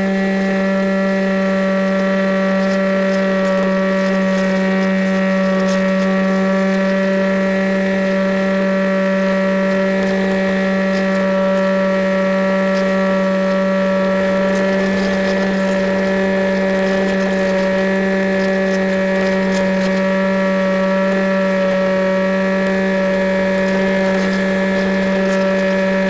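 Electric motor and propeller of an EasyStar RC foam plane running at steady high throttle in a climb, a steady whine over a light rush of air. The pitch steps up right at the start and drops at the very end as the throttle changes.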